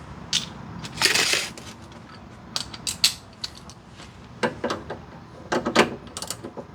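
Scattered metallic clinks and clanks, with a short scraping rattle about a second in: hand tools and metal suspension parts being handled while loosening sway bar link nuts.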